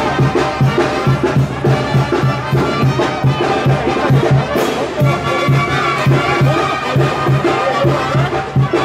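Brass band music with a steady, quick bass beat.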